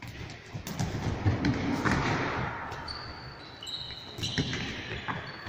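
Bubble football in a sports hall: dull thuds and knocks of inflatable bumper balls bumping and a ball being kicked, echoing in the hall, with a few short high squeaks about three to four seconds in.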